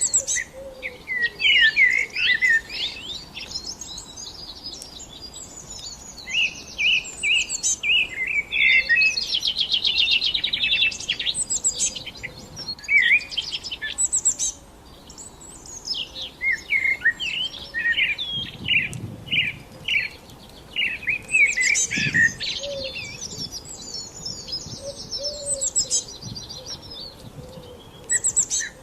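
Songbirds singing, a steady stream of quick chirps and whistled phrases with a fast trill about ten seconds in.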